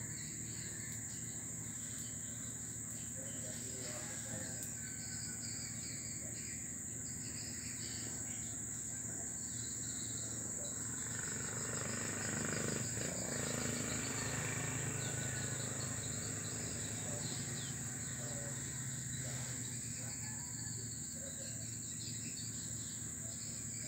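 Continuous high-pitched drone of insects, steady throughout, with a low rustle swelling briefly around the middle.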